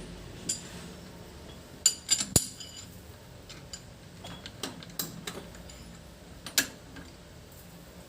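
Scattered sharp metal clinks with brief ringing, from steel tools or parts knocking together as they are handled; a quick group of three comes about two seconds in.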